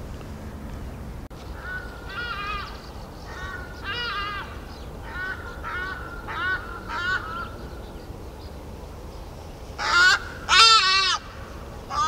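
Birds calling outdoors: a string of short calls, mostly in pairs, with the loudest run of calls about ten seconds in.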